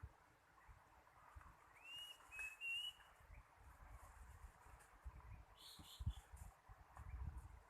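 Faint short whistled bird calls: a few quick, slightly curving notes about two seconds in and a brief higher note around six seconds in, over low rumbling thumps near the end.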